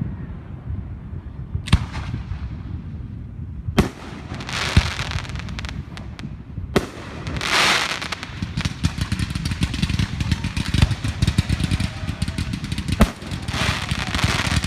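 Fireworks going off: several separate sharp bangs, a hissing whoosh about halfway, then a long run of dense crackling to the end.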